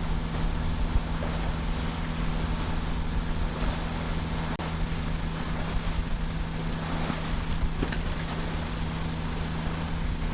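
Sailboat's inboard engine running steadily under way, a constant low hum, with wind noise on the microphone and the rush of water past the hull.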